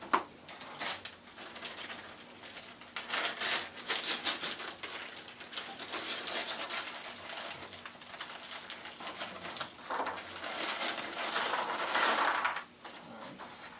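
A plastic hardware bag being handled, crinkling, with loose pan-head screws clinking inside it; scattered clicks and rustles, then a denser stretch of crinkling about two seconds long near the end.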